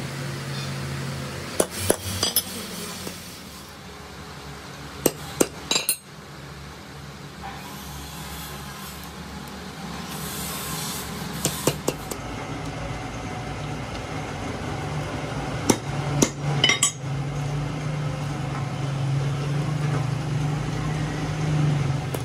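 Hammer striking the metal of a Fiat 640 tractor clutch disc: sharp metallic taps in small groups of two or three, with gaps of several seconds between groups.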